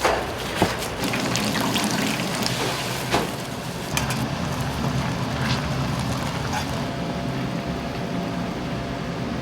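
A few sharp clicks and knocks in the first few seconds over a steady background of noise and low hum, which carries on alone after that.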